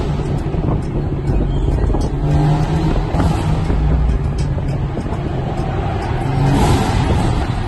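Car engine and road noise heard from inside the cabin while driving, with music playing over it.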